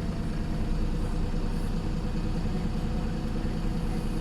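Diesel engine of a Pulsar single-deck bus running steadily, a continuous low drone with no revving up or down. It is the tired-sounding engine thrash of an old bus.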